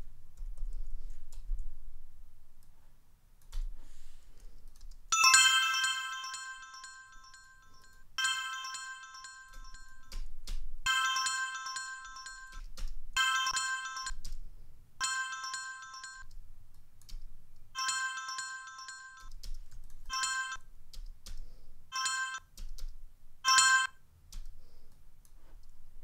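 Synthesized bell-like notification chime, a bright chord of ringing tones, played back nine times starting about five seconds in. The first plays last about two seconds and the later ones are cut shorter, about half a second each.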